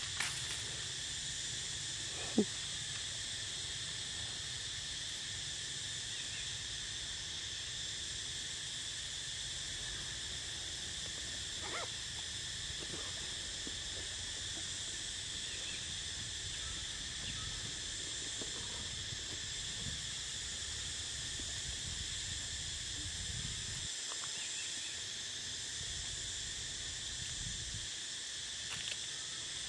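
Steady outdoor insect chorus, a continuous high-pitched shrill in several pitch bands, with a single short click about two seconds in.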